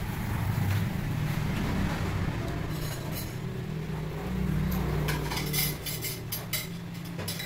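Low, steady rumble of passing road traffic, with a quick series of clinks of dishes and cutlery in the last couple of seconds.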